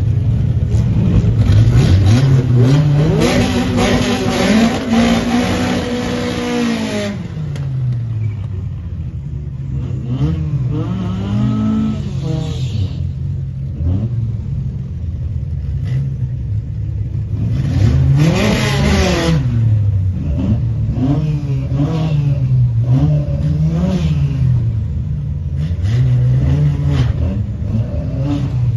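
Nissan pickup truck engines idling and revving repeatedly while staging at a drag strip start line: a long rev that climbs and holds for several seconds near the start, a sharp blip a little past halfway, and shorter blips in between.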